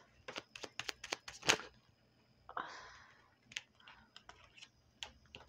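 Tarot cards being handled on a cloth-covered table: a quick run of light clicks and taps, a brief rustle about two and a half seconds in, then a few more scattered taps.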